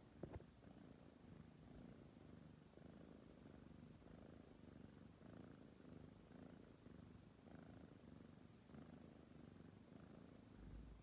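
A sleeping tabby kitten purring faintly and steadily, the purr swelling and easing in a slow, regular rhythm with its breathing. There are a couple of faint clicks right at the start.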